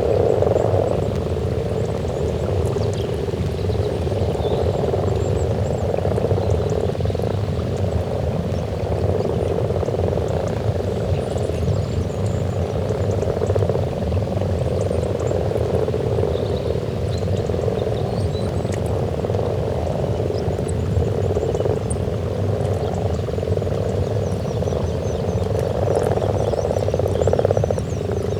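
A dense breeding chorus of common frogs at their spawning pond: many frogs croaking at once in a continuous purring croak that swells and dips.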